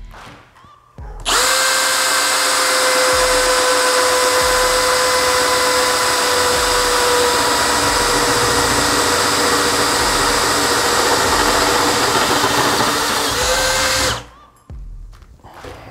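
Bosch GSB 185-LI 18 V cordless drill/driver, set to position 1, drilling a hole. The motor starts about a second in and runs steadily with a whine that sags slightly in pitch under load. It lifts a little just before stopping about two seconds before the end.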